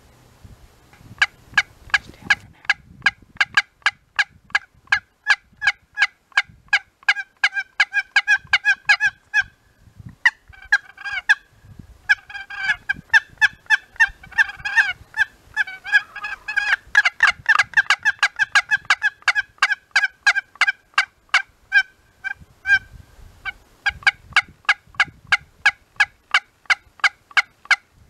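Turkey yelping: a long run of short, evenly spaced yelps at about three to four a second, broken briefly twice around the middle.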